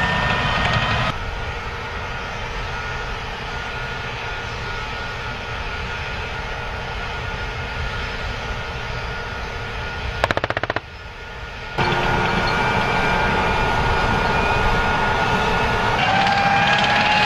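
M1A2 Abrams tanks' gas turbine engines running with a steady high whine as they drive, the sound jumping abruptly at several edits. About ten seconds in comes a short burst of rapid machine-gun fire.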